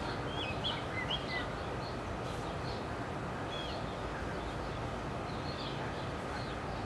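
Small birds chirping, a cluster of short calls in the first second and a half and a few scattered later, over a steady background hiss.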